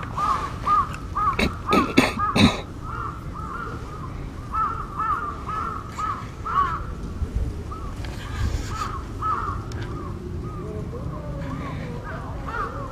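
Crows giving a long, rapid series of short cawing calls, about three a second, with more than one bird calling at slightly different pitches; the uploader takes this calling for a crow earthquake-warning call. A few loud sharp knocks sound about two seconds in.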